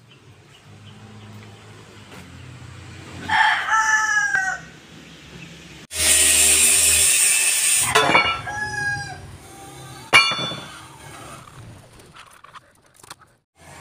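A rooster crows twice, a few seconds in and again about eight seconds in, each crow a loud call that bends down in pitch. Between the crows comes a loud rushing burst of about two seconds, and near ten seconds a single sharp knock.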